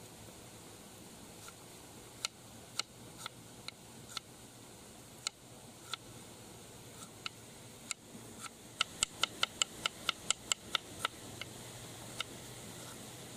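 Knife slicing cabbage on a wooden chopping board: sharp knocks of the blade striking the wood, scattered at first, then a quick run of about five cuts a second past the middle, thinning out again near the end.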